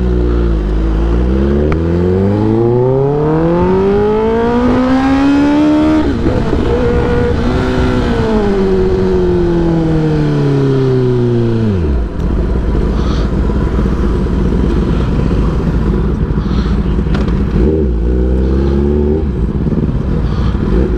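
Kawasaki ZX10R's inline-four engine pulling away, its pitch rising steadily for about five seconds. The pitch then holds and falls away as the bike slows, dropping sharply about twelve seconds in. After that it runs low and steady, with a short blip of the throttle near the end.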